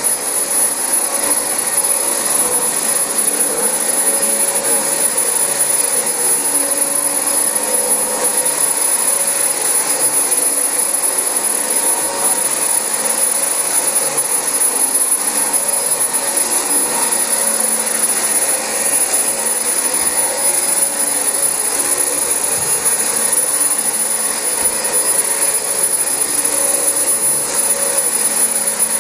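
Dyson DC25 upright vacuum cleaner running steadily over carpet: a rush of air with a steady high motor whine.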